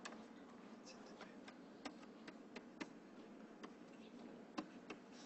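Faint, irregular clicks of a stylus tapping on a tablet screen during handwriting, a few a second over low room tone.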